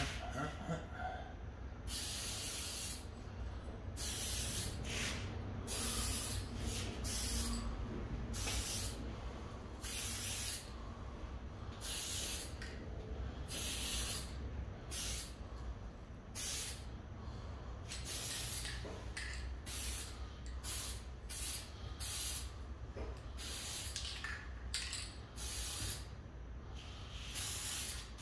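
Aerosol spray paint can spraying in many short, irregular bursts of hiss, each a fraction of a second to about a second long, as paint is misted onto a figure.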